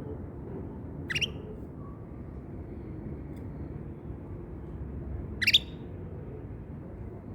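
Canary giving two short chirps about four seconds apart, each a quick upward sweep, the second one louder, over a steady low background rumble.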